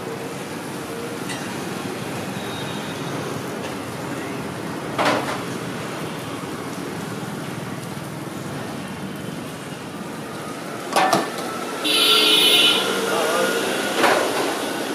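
Street-stall cooking noise over a steady background din of street traffic. Metal cookware on a dosa griddle clanks sharply a few times, with one longer, harsher clatter a little past the middle.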